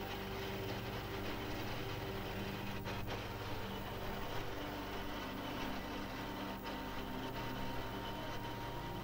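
Armoured military vehicle's engine running steadily as the vehicle drives along a road, heard from up in its turret, with a steady low drone and road noise.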